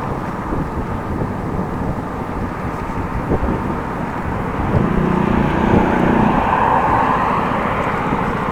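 Steady wind and road rumble of a bicycle ride, picked up by an action camera's microphone. From about five seconds in, a passing motor vehicle swells louder for a couple of seconds.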